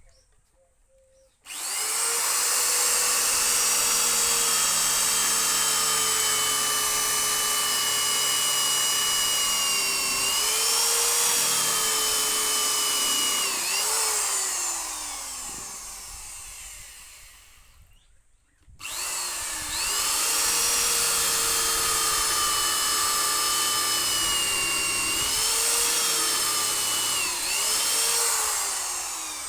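Handheld electric power tool motor run twice: it spins up with a high whine, dips in pitch briefly several times as it bites into the work, then is switched off and winds down. It restarts a few seconds later and winds down again near the end.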